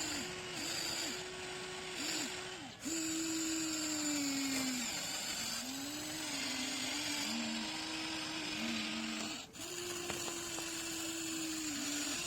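Electric motors of a Huina 1593 RC excavator whining as it digs. The whine rises and falls in pitch and shifts every second or two as different functions are worked, with brief breaks about three seconds in and near the end.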